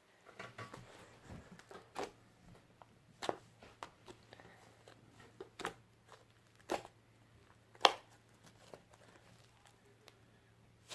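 Fluffy slime made of shaving foam, clear glue and borax glycerine being squeezed and pulled by hand, giving irregular sharp pops and crackles, the loudest about eight seconds in. A faint steady hum lies underneath.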